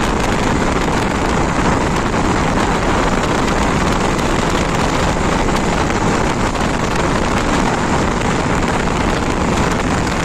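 Steady wind rush on the microphone of a motorcycle being ridden at road speed, mixed with the bike's engine and road noise.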